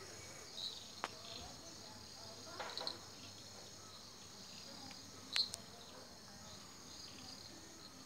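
Steady, high-pitched chorus of insects in tropical rainforest at dusk, with a few short chirps and a couple of sharp clicks, the loudest about five seconds in.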